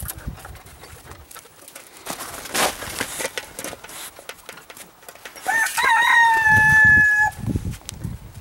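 Light clanks of a metal dog bowl, held in a Shiba Inu's mouth. About five seconds in comes a loud animal call lasting nearly two seconds: a few wavering notes, then one held, slightly falling note.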